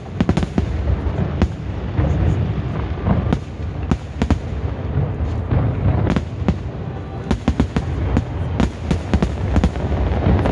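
Aerial fireworks bursting in rapid succession: many sharp cracks over a continuous low rumble of booms.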